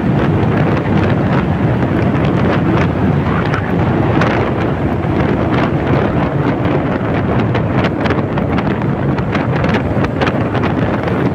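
Heavy wind buffeting on the microphone of a Honda Click 125i scooter ridden at about 50–60 km/h, a dense rushing noise with constant gusty spikes, and the scooter's running and tyre noise beneath it.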